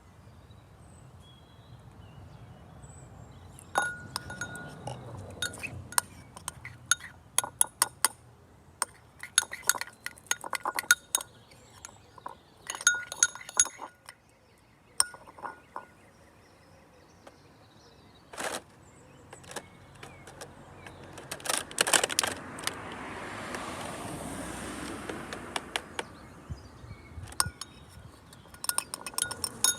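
Light clinks of hard objects against a ringing container, coming in rapid clusters. A soft hiss swells and fades about three quarters of the way through.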